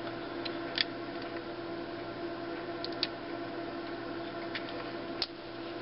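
A few light, sharp clicks from small plastic HO coupler-box parts being handled, spaced a second or more apart, over a steady low hum.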